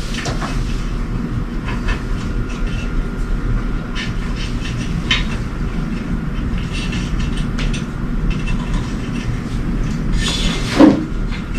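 Steady low rumbling noise throughout, with a few light clicks and scrapes as solar cables are fed through the metal tower's pole mounts, and a louder short knock near the end.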